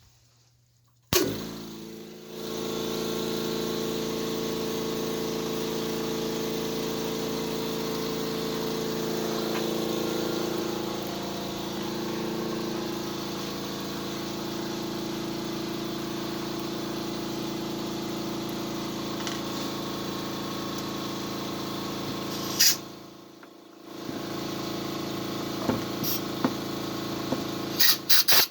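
Air compressor switched on about a second in, its motor and pump running steadily with a hum of several held tones. It cuts out briefly near the end, then runs again.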